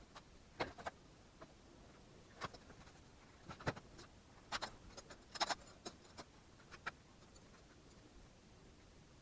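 Irregular light clicks and clinks, about a dozen spread over some seven seconds, then quiet: tools and engine parts being handled during an engine teardown.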